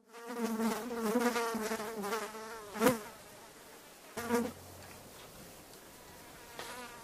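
A fly buzzing: a wavering buzz for about three seconds, a short louder buzz near three seconds in, another brief buzz about a second later, then only a faint one near the end.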